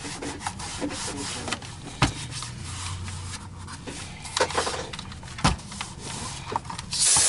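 Cloth wiping and rubbing over a Miele turbo brush floorhead as it is cleaned, with a few sharp knocks of the head being handled. Near the end comes a short, loud spritz of cleaning spray.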